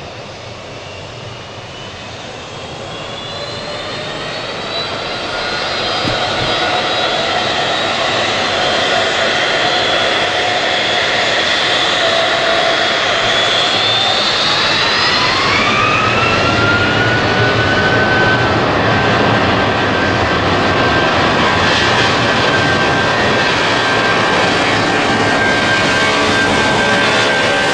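Boeing 757's twin turbofan engines spooling up for take-off. The sound grows louder over the first several seconds. Its whine rises in pitch about halfway through, then holds steady at take-off power.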